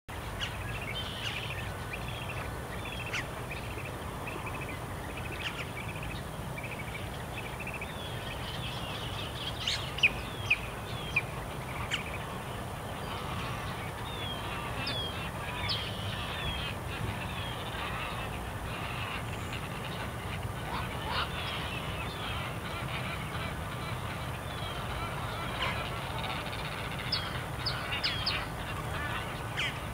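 Many wild birds calling together: a steady stream of short chirps and sharp downward-sliding calls, with a few louder calls around ten to twelve seconds in, over a low steady rumble.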